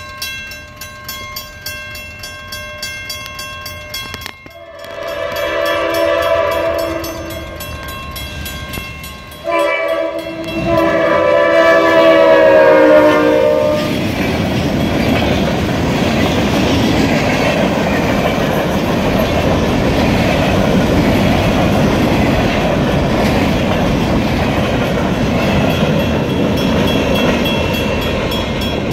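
Diesel freight locomotive horn blowing two blasts, the second longer, as the train nears the crossing. Then the locomotives and covered hopper cars pass close by with a steady rumble and clatter of wheels on the rails.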